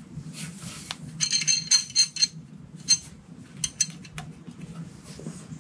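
Metal clinking and tapping as a hoisted turbocharger is handled and set against the engine bay: a cluster of ringing clinks a little after a second in, then a few scattered sharp taps.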